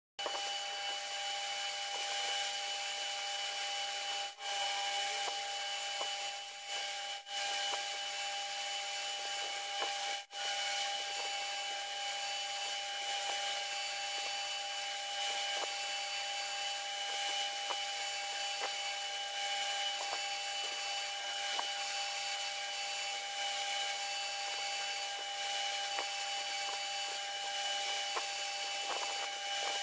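Milling machine running with its end mill cutting a cast metal housing: a steady whine from the spindle and motor over the hiss of the cut, with a few short breaks in the first ten seconds.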